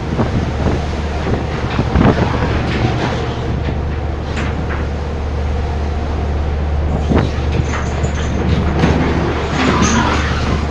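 Steady low drone of ship machinery, with scattered knocks and clanks from deck work near 2, 4.5, 7 and 10 seconds.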